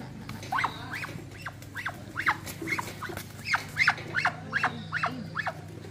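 An animal giving a quick run of short, high calls, each a sharp sweep in pitch, about two or three a second, over a steady low hum.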